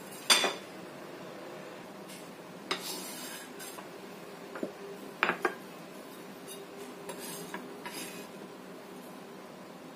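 A cleaver knocks and scrapes on a wooden cutting board while minced garlic is scooped up on the blade and tapped off onto a ceramic plate. There is a sharp knock near the start, then scattered clinks and scrapes.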